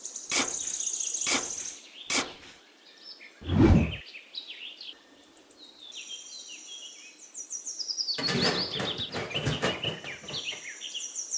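Small hand trowel digging in damp sand: a few short scrapes, then one heavy thump about three and a half seconds in. Bird chirps run through much of it, and near the end a thin plastic pond liner rustles as it is pressed into the sand.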